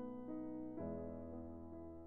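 Background piano music: a slow keyboard melody over held chords, with a new chord and bass note coming in about a second in.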